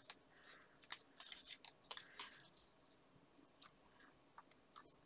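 Paper and card being handled: light rustling and a scattering of soft ticks and taps as a paper cut-out is picked up and pressed down onto a card.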